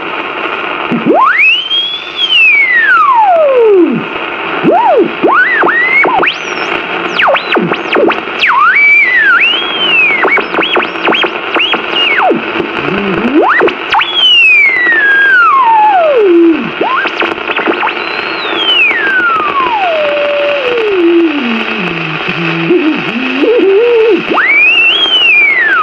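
Cartoon sound effects: a string of whistled pitch glides that swoop up and slide down, with quick up-and-down flicks in between, over a steady hiss.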